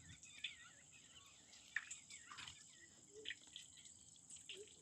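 Near silence with faint wild birds chirping now and then, over a steady high insect drone.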